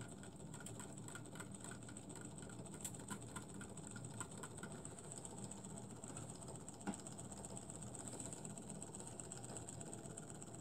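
Small brass tandem-crank model Stirling engine running with a faint, rapid mechanical ticking from its cranks and linkages, its cool end being cooled with sprayed water, which speeds it up. A run of sharper clicks in the first few seconds comes from the spray bottle's trigger.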